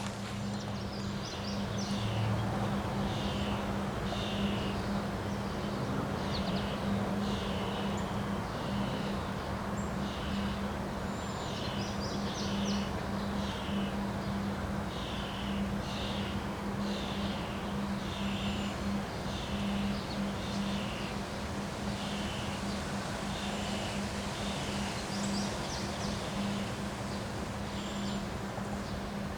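Wind rushing, with a bird repeating a short high call about once a second and a steady low hum underneath.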